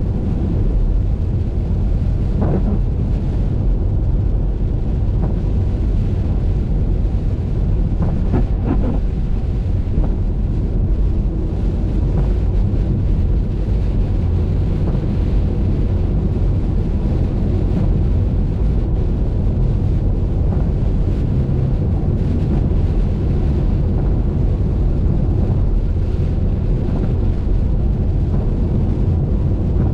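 Steady low rumble of a car's road and wind noise while driving on a wet highway, with a few faint short sounds near the start and about eight seconds in.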